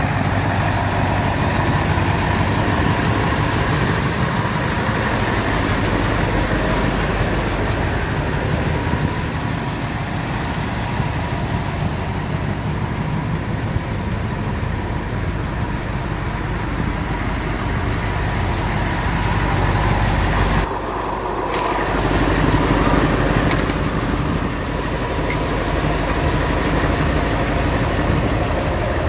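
Mercedes-Benz 1928 4x4 tipper truck's diesel engine idling steadily, briefly muffled once about two-thirds of the way through.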